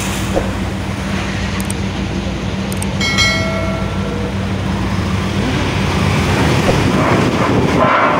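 Steady drone of engines idling on a ferry's vehicle deck, a low hum with a constant tone, and a short beep about three seconds in.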